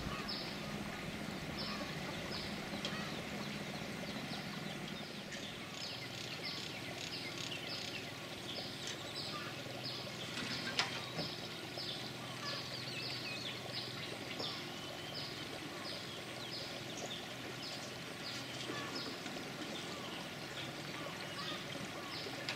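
Outdoor ambience of an animal calling: short high-pitched chirps repeated about twice a second, over a low steady hum, with a single sharp click about halfway through.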